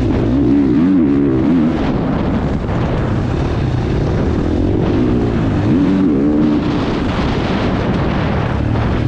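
Husqvarna motocross bike's engine, heard on board, revving up and down repeatedly as the throttle is worked around the track.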